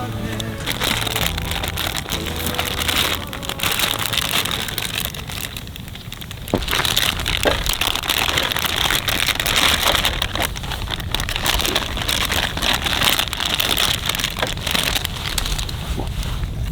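Continuous crunching and crackling, made of many small cracks, with a quieter spell about five to six seconds in.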